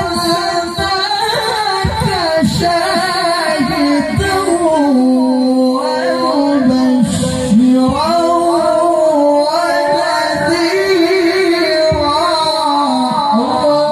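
A male qari reciting the Quran in the melodic tilawah style into a microphone, holding long, high, ornamented notes that bend and glide between pitches, with brief pauses for breath.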